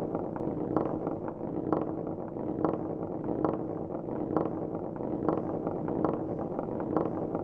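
Marbles rolling along a marble-run track: a steady rolling rumble, with a click a little under once a second.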